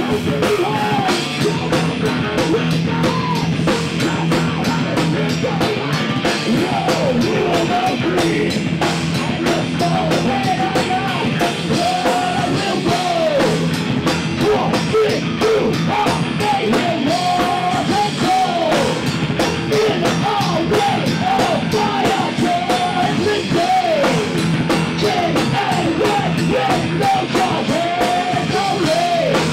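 Live metal band playing: a male singer's vocals over electric guitars, bass and a drum kit.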